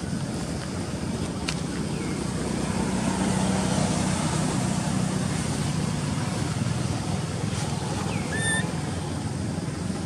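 Steady outdoor background of road traffic, with a low engine hum that swells in the middle and fades again, as a vehicle passing. A few short, high, falling chirps sound over it, the clearest one near the end.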